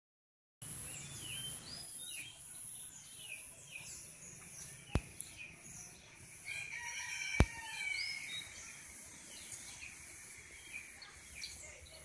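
Many small birds chirping in short rising and falling calls under a steady high-pitched whine, with a rooster crowing in the middle. Two sharp clicks come about five and seven and a half seconds in; the second is the loudest sound.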